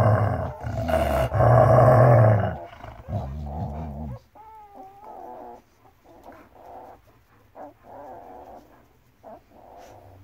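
Adult German Shepherd growling loud and low for about two and a half seconds, then a shorter, lower rumble. After about four seconds only faint, short, wavering whines and small sounds remain.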